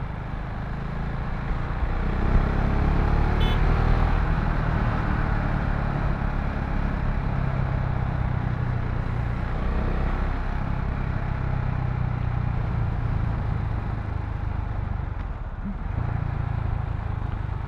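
Single-cylinder engine of a KTM Duke 690 motorcycle running under way, heard from the rider's position with steady wind and road noise. The revs climb about two to four seconds in, then hold steady.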